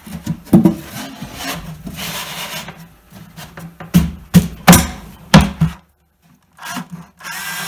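An MDF panel scraping against the wooden sides of a cabinet as it is slid into place, with several sharp wooden knocks as it is pushed and seated.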